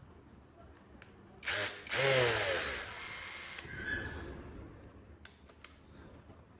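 Brushless cordless power tool motor triggered in a short blip, then run for about a second and a half and winding down. A few light clicks follow near the end.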